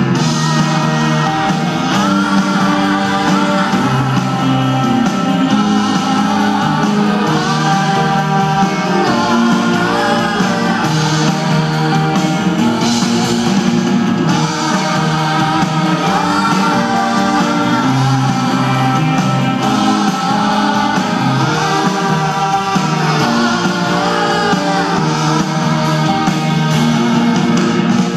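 Live pop band performing a song: a woman singing lead with backing vocals over drums, guitar, keyboards and double bass, continuous and loud.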